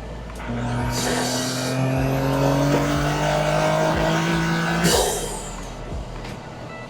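Toyota GR Corolla's turbocharged 1.6-litre three-cylinder, breathing through an Eventuri carbon-fibre intake, accelerating hard through a gear with its pitch rising steadily for about four seconds. About five seconds in the throttle snaps shut for a shift with a sharp turbo whoosh, and the engine drops back to a lower, quieter note.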